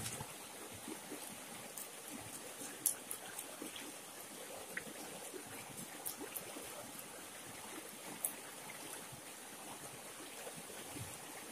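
Shallow river running steadily over stones, with small splashes and a few sharp clicks as fish are scaled with a knife on the rocks and washed in the water.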